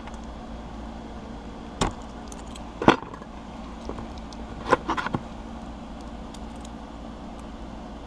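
Sharp metallic clicks of a brass lock cylinder and its key being worked by hand as the cylinder's cover is adjusted: one click about two seconds in, a louder one about three seconds in, and a quick run of four around five seconds, over a steady low hum.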